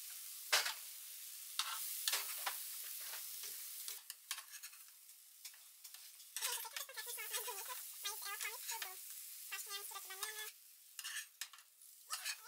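Banana pancakes sizzling in butter in a frying pan as they are flipped, with sharp clicks and scrapes of the utensil against the pan. The sizzle is strongest in the first few seconds and then drops off, and high, wavering calls come in several times in the middle.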